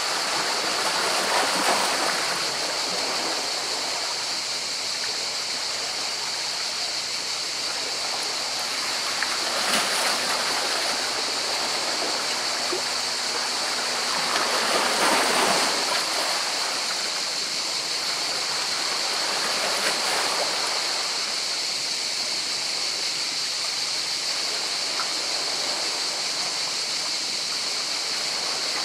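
Sea waves washing in among rocks: a continuous rush of water that swells every few seconds as waves break, the biggest surge about halfway through, over a steady high-pitched hiss.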